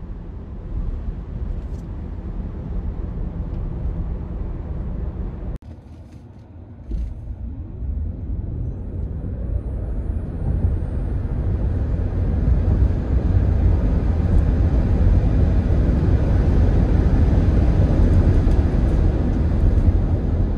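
Road and tyre rumble heard from inside a 2022 Tesla Model Y Long Range electric SUV on the move. It drops suddenly about five and a half seconds in, then builds up over the next few seconds and holds at a louder steady level.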